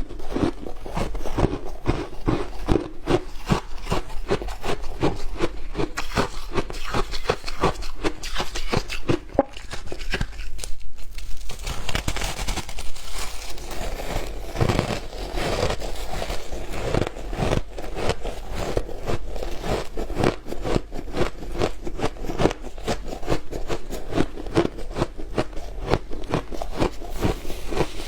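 Close-up chewing of frozen matcha ice: a dense, rapid run of crunching and cracking as the ice is bitten and ground between the teeth, with a short lull about eleven seconds in.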